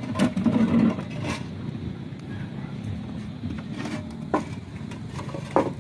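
Fired clay roofing tiles being handled and set in place: a muffled rubbing knock near the start, then a few sharp clinks of tile against tile, over a steady low background rumble.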